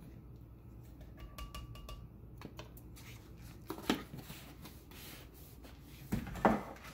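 Protein powder scooped from a plastic tub into a glass blender jar: soft rubbing and scraping, a sharp click a little under four seconds in as the tub's lid goes on, and a louder knock near the end.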